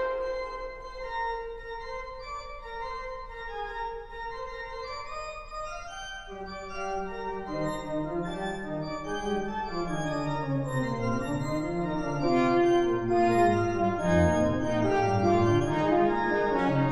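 Organ playing: a note held for about the first six seconds, then moving chords over a lower bass line, growing louder toward the end.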